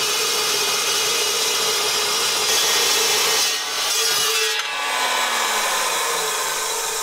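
Metal Devil 14-inch dry-cut metal saw cutting through steel plate: a loud, steady screech of the blade in the steel over the motor's whine. It eases briefly around four seconds in, as a cut-off piece drops away, then goes on with a lower tone that slides down.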